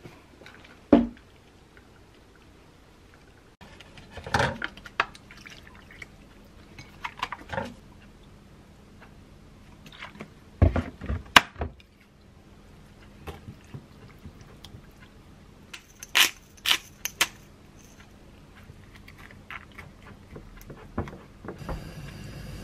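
Scattered knocks and clinks of handling: a cloth tote bag being packed, then pork being stirred in soy sauce and pear juice in a ceramic bowl with a wooden spoon. A steady hiss starts near the end.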